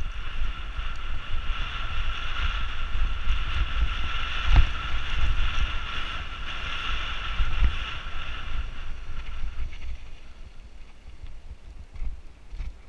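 Mountain bike rolling fast down a dirt trail, with wind rushing over the helmet camera's microphone and the tyres rumbling. There are knocks from bumps about four and a half and seven and a half seconds in. A steady high buzz runs with the ride and stops about ten seconds in, after which the ride sounds quieter.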